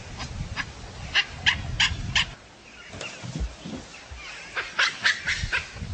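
Baboons giving short, sharp barking calls in quick runs, one run about a second in and another near the end, over a low rumble.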